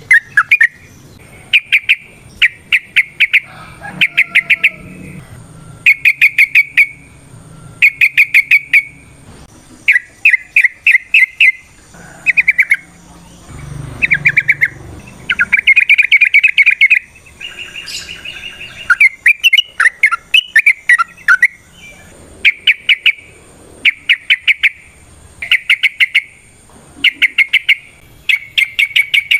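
Yellow-vented bulbul (trucukan) singing loudly in rapid bursts of quick, clipped chattering notes. The bursts are about a second long and repeat every second or two.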